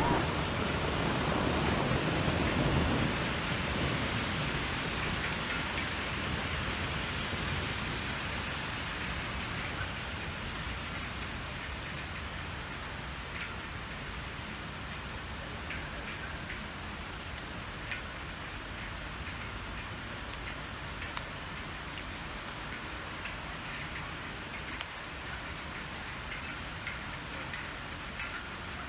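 Hail and rain falling in a steady hiss, with many scattered sharp ticks of hailstones striking hard surfaces. It is louder for the first few seconds, then settles to an even level.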